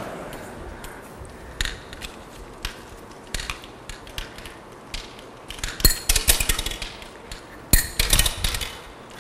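Steel ball bearings running through an automated sorting machine: single sharp metallic clicks about a second apart, then two quick bursts of clinking and rattling near the end as bearings are deflected by the rotary stage into clear plastic bins.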